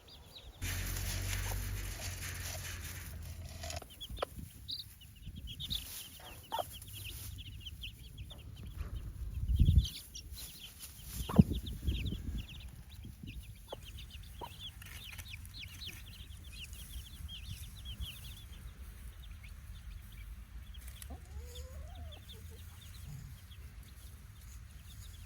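Newly hatched chicks peeping rapidly and high-pitched around a broody Buff Orpington cross hen, who clucks softly. Two sharp thumps come about ten and eleven seconds in.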